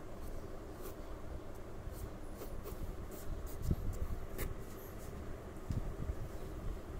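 Pencil scratching on drawing paper in short, intermittent strokes, with a couple of soft low thumps from the board being handled.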